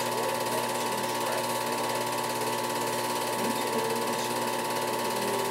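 Film projector running: a steady, rapid mechanical clatter from its film-advance mechanism over a constant motor hum.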